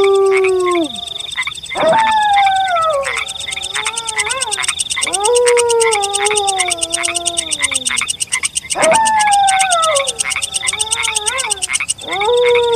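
A wolf howling: long calls that rise briefly and then slide slowly down in pitch, a new howl about every three and a half seconds, four in all. Behind them runs a steady, fast-pulsing chorus of frogs croaking at night.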